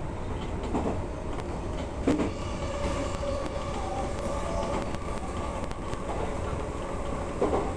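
Odakyu electric train running at speed, heard from inside the front cab: a steady rumble of wheels on rail, with a clack over a rail joint about a second in, a louder one around two seconds and another near the end.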